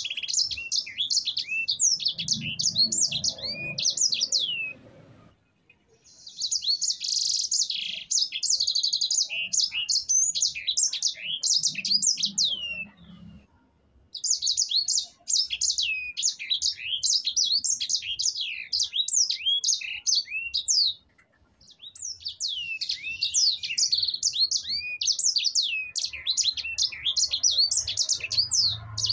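Sanger finch singing a long, fast rolling song of quick high notes that each sweep downward. The song comes in four bursts separated by brief pauses.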